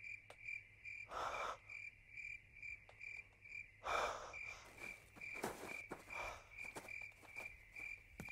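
A cricket chirping steadily at night, about three high chirps a second, with a few soft rustling noises of movement in between.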